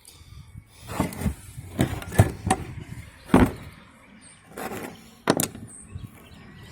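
Hard engine parts being handled and set down during a top-end teardown: a series of irregular knocks and clatters, about seven in six seconds.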